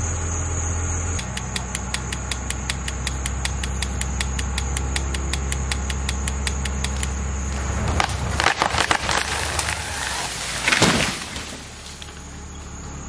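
A truck engine runs steadily, pulling on a rope tied to a notched dead tree, while the tree's wood gives a fast, even run of clicks as it starts to break. About eight seconds in the trunk cracks loudly and splinters, and near the end it crashes to the ground. Insects drone steadily in the background.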